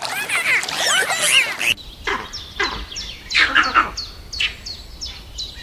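Birds chirping: a dense mix of quick gliding calls, changing abruptly about two seconds in to a run of short, high calls repeated about three times a second.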